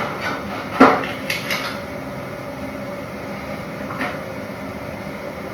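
Small household items being handled and set down on a hard surface: one sharp knock about a second in, then a few lighter clicks and taps.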